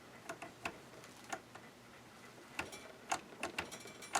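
Sharp irregular clicks from the selector knob of a Janome ME4014 sewing machine being turned back and forth through its detents; the knob will only go through three of its settings.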